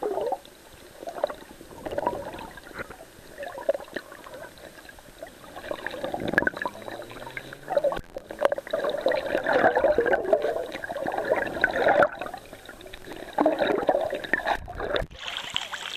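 Muffled gurgling and sloshing of sea water around a camera held underwater, rising and falling in irregular surges. Near the end the camera comes up through the surface and the sound turns brighter and splashier.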